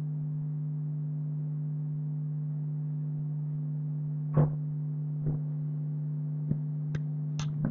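A steady low hum with several faint overtones, joined by a short soft sound about four seconds in and a few faint clicks near the end.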